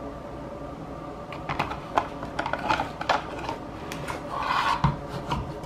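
Pistol with a weapon light being handled against a hard plastic holster and pushed into it: a run of light clicks and taps from about a second in, a scraping rub near the end, and a sharp click at the very end as the gun seats in the holster.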